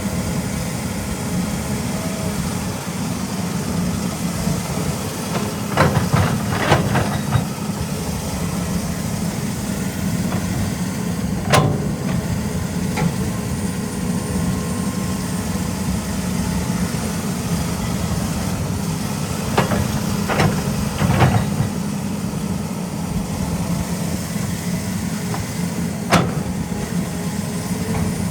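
Caterpillar 320E hydraulic excavator's diesel engine running steadily as it works, with sharp clanks now and then. There is a quick cluster of them a few seconds in, single ones in the middle, another cluster past the midpoint and one more near the end.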